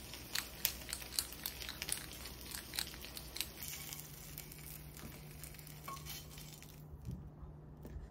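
Pepper grinder being twisted, a run of quick crackling clicks as the peppercorns are crushed. After about three and a half seconds the clicks thin out and a faint steady low hum is left.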